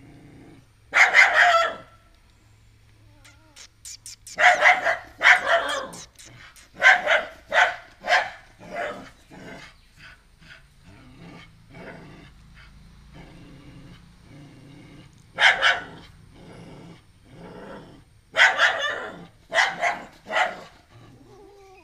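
Small white dog barking repeatedly in loud bursts, with fainter barks between, at an unfamiliar puppy it does not yet accept.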